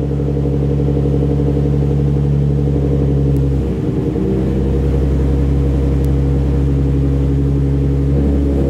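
Nissan 350Z's 3.5-litre V6 running through its newly built exhaust in a shed, held at steady raised revs with a brief dip about four seconds in and then steady again. Very loud, which the builder finds way too loud.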